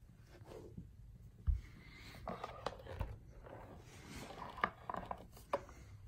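Handling noise: a few sharp clicks and knocks mixed with rubbing and scraping. The loudest is a low thump about one and a half seconds in.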